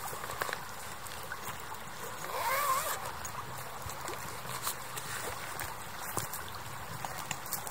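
River water flowing, a steady rush broken by many small splashes and drips. About two and a half seconds in there is a short wavering, gurgling note.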